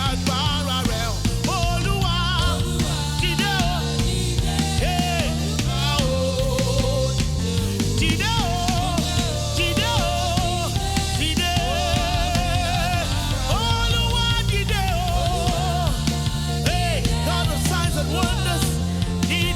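Church worship music: a singer with vibrato carrying the melody over a band with a drum kit and a steady bass line.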